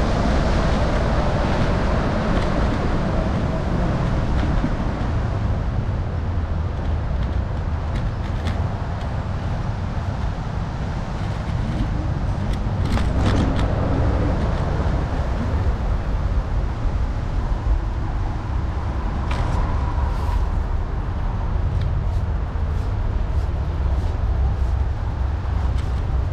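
Riding a bicycle in traffic: a steady, fluctuating low rumble of wind and road noise, with a few short knocks or clicks along the way.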